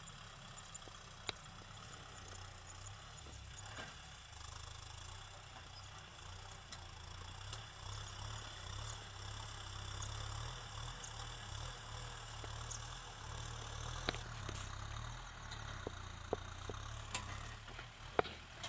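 Kubota tractor's diesel engine running steadily at low revs, a low wavering hum heard from some distance. Several sharp clicks or knocks come near the end.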